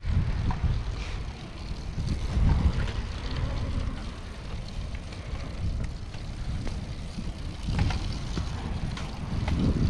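Wind buffeting the microphone, an uneven low rumble, with a few faint clicks.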